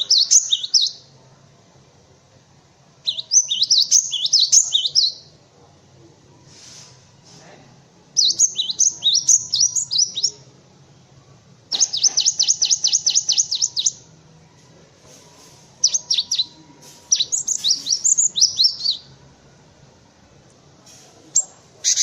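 Cinereous tit (gelatik batu) singing in repeated bouts of quick, high, down-sweeping notes a few seconds apart. About halfway through, one bout is a fast, even run of identical notes. A faint low hum runs underneath.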